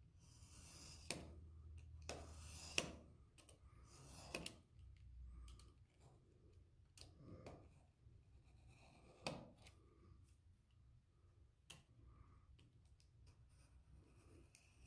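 Craft knife drawn repeatedly along a steel ruler, slicing through the paper block and card cover of a small notebook: faint scraping strokes and sharp clicks, the loudest about three seconds in.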